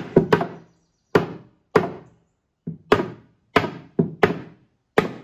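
Repeated heavy blows striking the wooden bar cabinet, about ten strikes at roughly two a second, each with a short ringing tail, as its top and door are knocked off.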